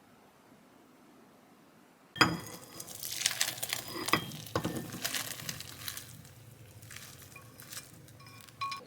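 Dishes and utensils clattering and clinking, with a hiss like food frying. It starts suddenly about two seconds in, then thins out to a few quieter clinks, with one more clink near the end.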